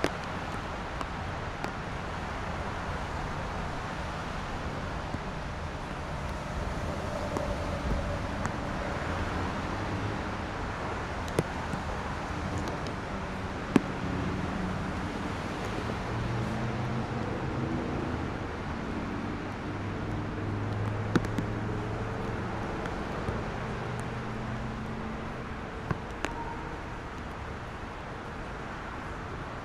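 Steady city traffic noise from an expressway below, cars and trucks running on rain-wet road. A low hum stands out for several seconds in the second half, and a few sharp ticks come now and then.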